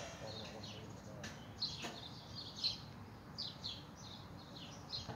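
Small birds chirping: a steady run of short, high, downward-sliding chirps, about one or two a second, with a couple of faint clicks about one and two seconds in.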